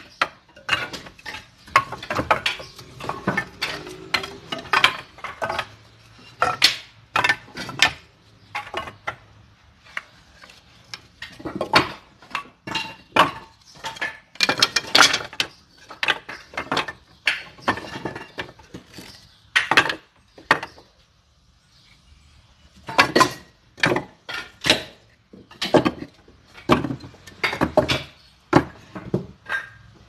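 Pieces of firewood knocking and clattering against each other as they are handled, in irregular clusters of sharp knocks with short pauses and a brief lull about two-thirds of the way through.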